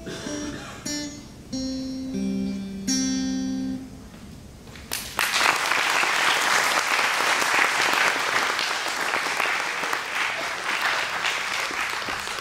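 Electric guitar playing a few slow, held single notes that close a simple melody, then from about five seconds in an audience applauding.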